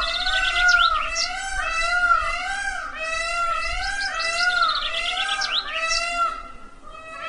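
Indian peafowl (peacock) calling: a string of loud, wavering, nasal wails repeating several times a second, with quicker rising notes laid over them near the start and again past the middle. The calls dip briefly near the end and then pick up again.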